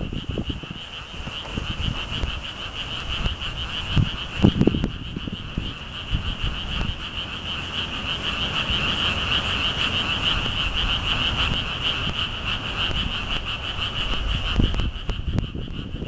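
A chorus of frogs calling in a steady, fast-pulsing trill, over strong wind buffeting the microphone in low gusts, the strongest about four seconds in.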